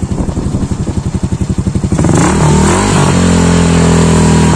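Tuned (loaded) motorcycle engine with a JVT v3 exhaust pipe idling with an even putter, then revved hard about two seconds in and held at high rpm. It has an aggressive, 'angry' tone because the engine is modified, with a centre spring and clutch spring swapped.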